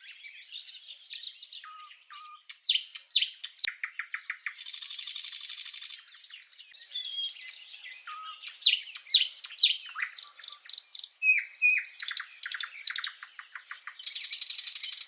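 Nightingale singing: a varied song of short whistles, falling notes and fast repeated notes, with long buzzy rattles about five seconds in and again near the end.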